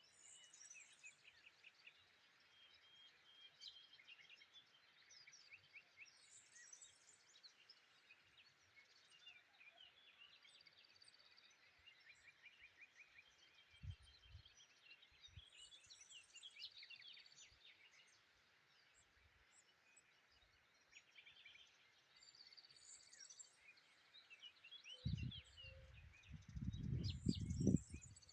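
A songbird, the bird known locally as tabarghla, sings repeated bouts of quick, varied high notes with short pauses between them. Low muffled rumbles of wind or handling noise hit the microphone once near the middle and again near the end.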